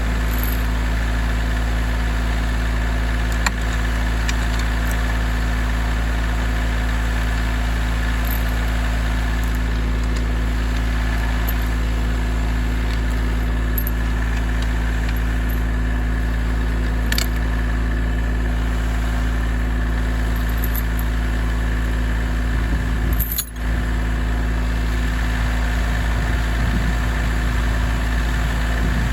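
Tractor engine running at a steady speed, with a few brief clicks over it.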